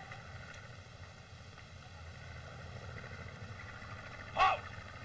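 Steady hiss of an old film soundtrack, then a man's single short shout about four seconds in: a barked drill command.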